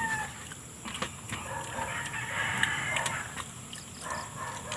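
A rooster crowing once, a long call of about a second and a half starting about a second and a half in, with a few light clicks around it.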